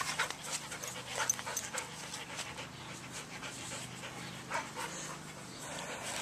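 Soft Coated Wheaten Terrier panting.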